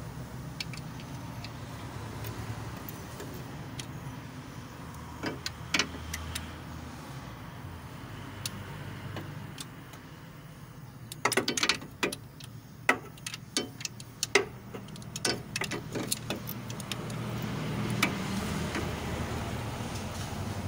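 Metal hand tools clinking and tapping against the engine's front as a long wrench bar is worked on the timing belt area. The clinks are scattered, a couple around a quarter of the way in and a busy cluster just past the middle, over a steady low hum.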